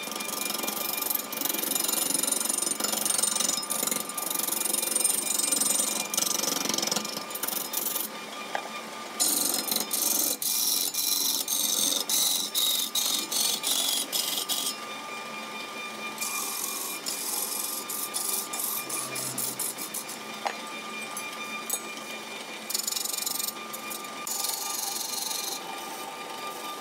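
Wood lathe with a gouge cutting a large spinning blank: a rushing hiss of shavings coming off in long stretches with short breaks as the tool is moved, over a faint steady whine from the lathe. The cutting grows choppier and a little softer about halfway through.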